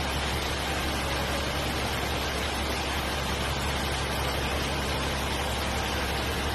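Truck engine running steadily: a constant low hum under an even hiss.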